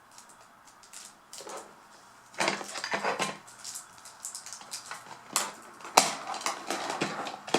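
Small plastic toy parts being handled: clicks, taps and rustling that start about two and a half seconds in, after a quiet start, with a few sharper clicks towards the middle.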